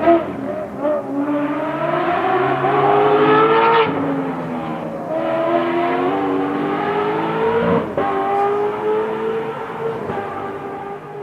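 Aston Martin Vantage GT4's V8 engine accelerating hard, its pitch climbing, dropping at upshifts about 4 and 8 seconds in and climbing again, then fading away near the end.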